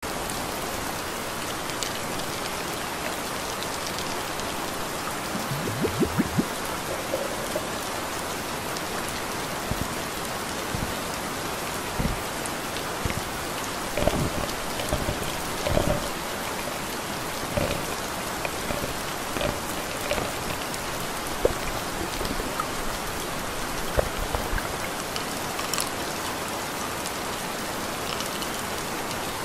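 Steady rainfall, an even hiss of rain, with occasional louder knocks of drops here and there.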